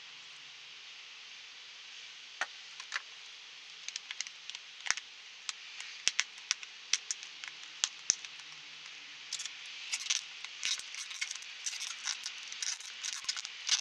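Handling noise: sharp light clicks and taps of a plastic toy boat hull being picked up and turned over in the hands, sparse at first and much busier from about nine seconds in, over a steady hiss.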